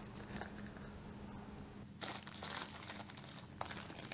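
Plastic packaging wrap crinkling as hands handle a camcorder wrapped in it. The crinkling is faint at first and becomes louder and busier about halfway in.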